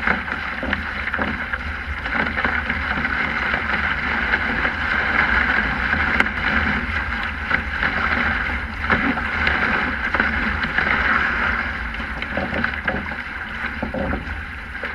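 Water rushing and splashing along a Sprint 15 catamaran's hulls under sail, surging louder and softer, with a steady low wind rumble on the microphone.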